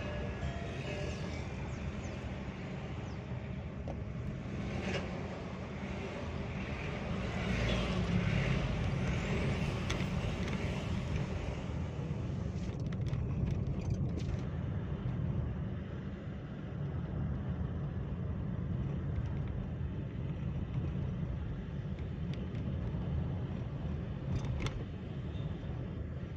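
Chevrolet Spin 1.2 MPV driving along a town road: a steady low rumble of engine and tyres. The sound is brighter and a little louder in the first half, turning duller about halfway through.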